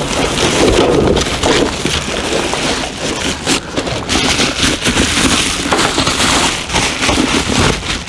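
Packaging rustling and crackling as new awning arms and hardware are handled and pulled from their shipping box: a dense run of small crackles and clicks.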